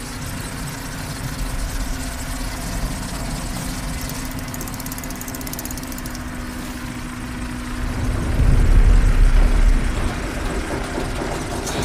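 Low rumbling drone with a steady hum underneath, swelling into a heavy, deep rumble about eight seconds in, then easing back.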